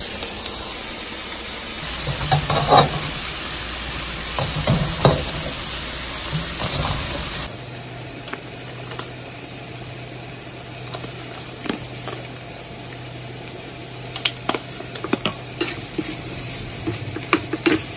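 Food sizzling in a frying pan on a gas stove while a utensil stirs it, with scattered clicks and scrapes against the pan. About halfway through the sizzle drops to a quieter level, with a faint low hum under it.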